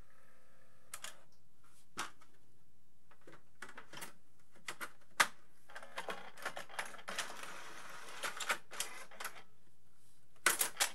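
VHD videodisc player's loading mechanism working after eject: a series of sharp clicks as the plastic cartridge sleeve goes into the slot, then a few seconds of motor and gear whirring and rattling as the disc is drawn off the turntable back into the cartridge, with more clicks near the end.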